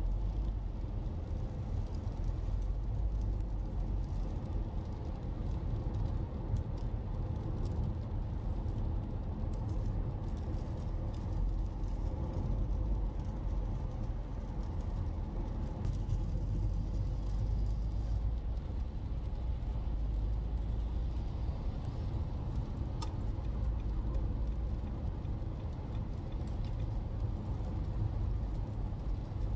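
Road noise inside the cabin of a car driving on a wet highway: a steady low rumble from the tyres and engine, with a few faint ticks now and then.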